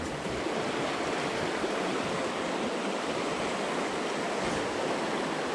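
Fast, shallow river current rushing and riffling over a rocky bed: a steady, even wash of moving water.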